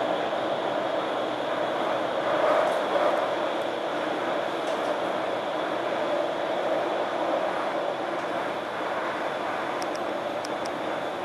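Shenzhen Metro Line 11 train running at speed, heard from inside the coach: a steady rushing rumble that eases slightly in level, with a few faint ticks near the end.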